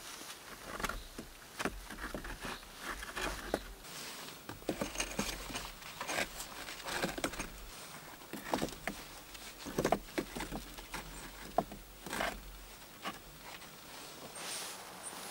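Stones knocking and scraping against each other as they are lifted and set into a dry stone wall, in irregular clunks with a few sharper knocks about two thirds of the way through.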